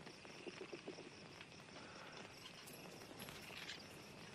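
Crickets chirping faintly and steadily, a continuous high trill.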